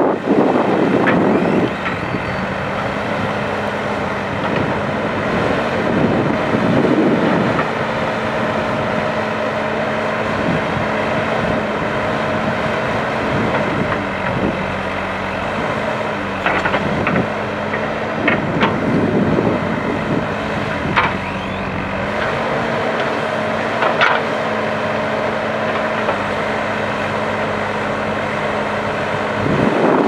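ACE backhoe loader's diesel engine running steadily under hydraulic load as the backhoe arm digs and dumps soil, the engine working harder in several swells. A few sharp knocks come in the second half.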